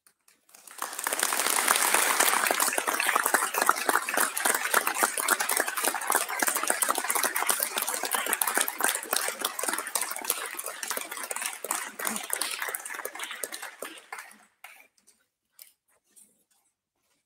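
A roomful of people applauding, starting about a second in, thinning out and dying away with a few last claps near the end.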